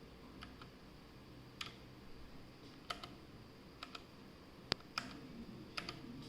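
Keyboard keys pressed one at a time: about a dozen sharp, separate clicks spread unevenly, several coming in quick pairs.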